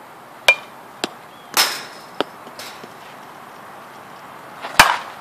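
Sharp cracks of a composite slowpitch softball bat, a new Bass Pinky, striking the ball. There are two loud hits, about half a second in and near the end, with a few smaller knocks and a ringing clatter between them.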